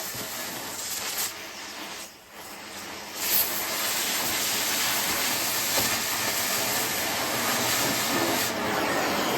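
Oxy-fuel cutting torch hissing steadily as it cuts through thick steel plate. The hiss drops away briefly about two seconds in and returns louder about three seconds in.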